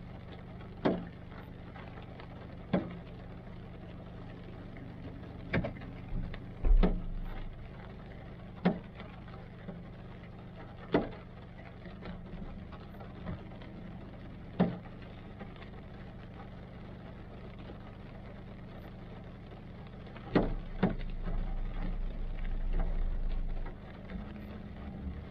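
Large raindrops landing on the stopped car as sharp single taps, irregularly spaced about one to three seconds apart, over the steady low hum of the idling engine. A low rumble swells for a few seconds near the end.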